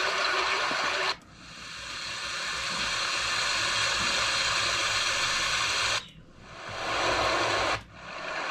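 Recorded stream sound effects from a sound library played back one after another: a steady rushing hiss of running water that fades in, then cuts off abruptly about a second in, again about six seconds in and near the end, each time giving way to the next file fading in.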